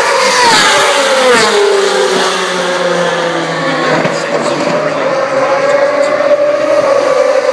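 2012 Formula One car's 2.4-litre V8 passing at high revs, its note falling in pitch as it goes by over the first two seconds. About halfway through, another engine note comes in and holds steady.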